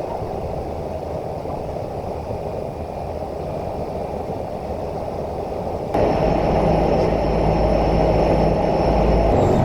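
Cessna 208 Caravan's turboprop engine and propeller heard as a steady rumble. About six seconds in the sound changes abruptly to a louder, deeper rumble.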